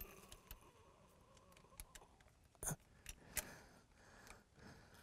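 Faint metallic clicks and clinks of a new anti-roll bar mounting bolt being handled and started into its thread by hand, with a few sharp ticks, the loudest about two and a half and three and a half seconds in.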